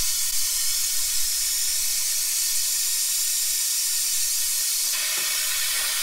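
Compressed air hissing steadily through the venturi of an OEM Tools coolant system refiller on the radiator, drawing a vacuum on the engine's cooling system.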